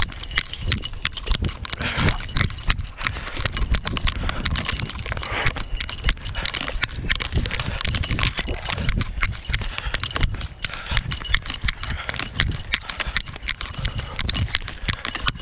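Footsteps on a concrete sidewalk heard through a chest-mounted GoPro, a continual run of impacts as the wearer moves along, over a steady low rumble on the microphone.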